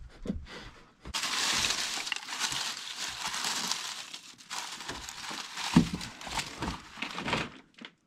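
Hands rummaging through a box of loose small hardware: a dense rattling clatter of metal pieces for about three seconds, then scattered clinks and knocks.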